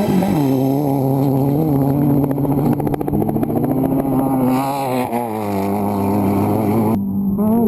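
Desert race buggy engine running, its pitch wavering up and down with the throttle. It drops lower about five seconds in and changes abruptly about seven seconds in.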